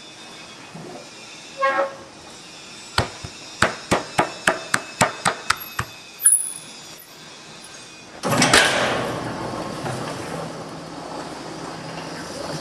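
Glass-factory work sounds: a quick run of sharp knocks, about four a second, then a few short high-pitched squeals, then a sudden burst of hissing that slowly dies away.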